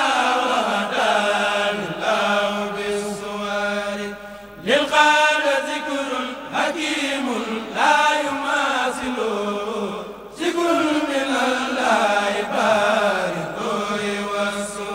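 A solo voice chants an Arabic devotional poem in praise of the Prophet, in long drawn-out melodic phrases that glide downward, over a steady low hum.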